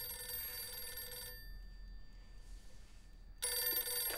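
Telephone bell ringing in its ring-and-pause pattern: one ring stops about a second in, and the next ring starts after a pause of about two seconds, near the end.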